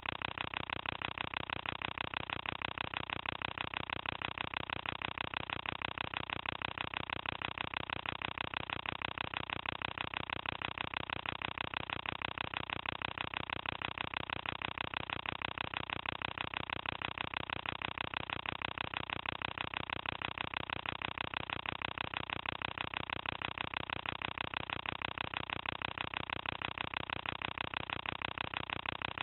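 Film projector running: a steady, rapid, even mechanical clatter.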